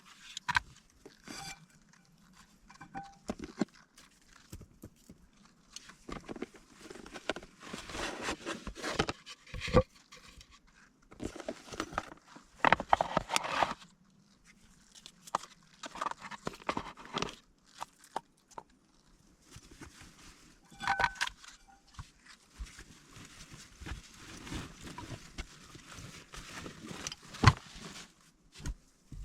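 Uneven rustling, crunching and clicking, like someone moving about and handling things on a forest floor, with a sharp knock or snap near the end.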